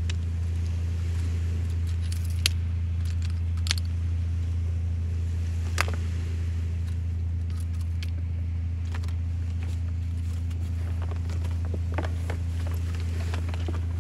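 A steady low mechanical hum, with scattered sharp clicks and ticks on top, the loudest about two and a half, four and six seconds in.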